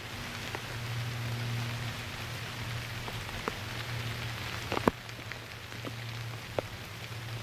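Steady rain falling, with a few louder single drops, the strongest about five seconds in, over a low steady hum.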